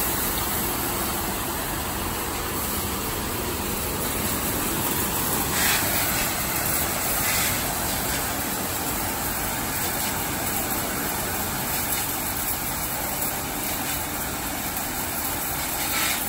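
Stainless-steel crate washing machine running: a steady rush of water spray with the hum of its pumps and motor, with brief louder surges about six and seven seconds in.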